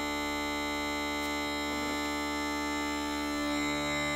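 Set of uilleann pipes in D, with drones and chanter holding one steady chord, unchanging throughout.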